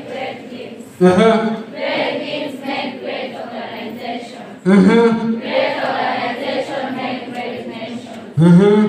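Many students' voices at once in a large hall, speaking together like a chant. Three times a single louder voice close to the microphone rises out of it: about a second in, near the middle and near the end.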